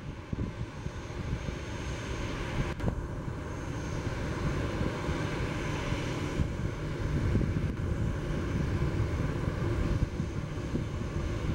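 Airbus A340-300's four CFM56 turbofan engines running: a steady jet rumble with a faint high whine, growing somewhat louder in the second half.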